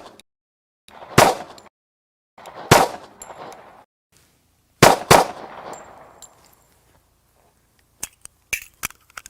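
Nighthawk Custom Bull Commander, a .45 ACP 1911 pistol, firing single shots: one about a second in, one near three seconds, then two in quick succession about five seconds in, each with a ringing tail. A few light clicks follow near the end.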